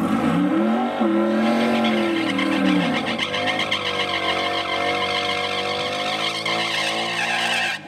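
Ford Mustang V8 doing a burnout: the engine revs up, eases back, then holds steady at high revs while the rear tyres spin and smoke, and the sound cuts off near the end.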